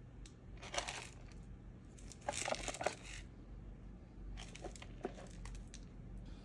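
Handling noise of a Nongshim Shin Ramyun mini cup-noodle cup being picked up and turned over in the hand: short rustles in three bouts, the loudest about two to three seconds in.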